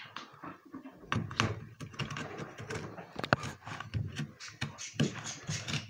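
Utility knife blade scoring and sawing through corrugated cardboard in short, irregular scraping strokes with light clicks.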